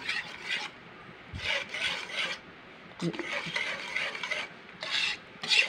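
A stirring utensil scraping and rasping against a pot as thick chocolate moron batter of ground rice and coconut milk is stirred, in irregular strokes of differing length. The stirring is kept up nonstop so the thickening batter doesn't form lumps.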